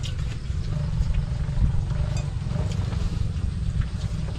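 Wind buffeting the microphone as a steady, fluttering low rumble, with a few faint clinks of utensils on plates.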